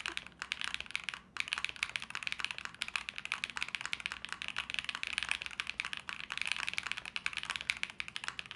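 Mechanical keyboard being typed on fast and continuously: a dense run of crisp clacks with a brief pause about a second in.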